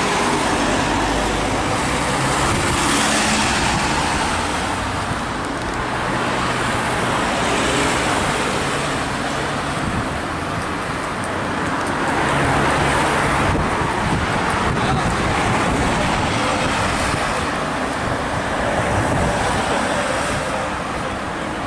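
Road traffic driving past: vans and cars passing one after another, a steady rush of engines and tyres that swells and fades as each vehicle goes by.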